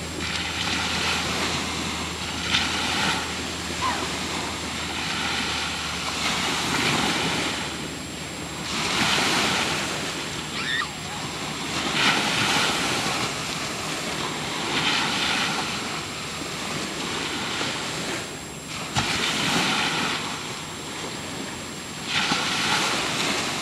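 Ocean surf washing and breaking, swelling and easing every few seconds, with wind on the microphone.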